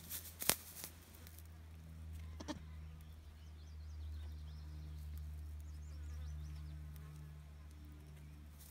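A flying insect buzzing low and steady near the microphone, growing louder through the middle, with two sharp clicks at the start and faint high chirps.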